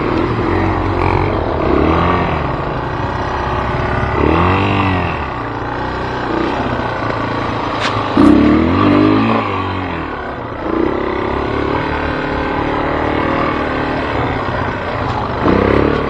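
A motor vehicle's engine running, its pitch rising and falling in several revs, the loudest a little past halfway.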